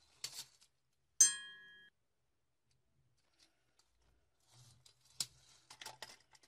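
Small toy car dropped into a plastic bowl about a second in: a sharp clink that rings briefly. Light clicks and scrapes of toy cars being handled and set down follow near the end.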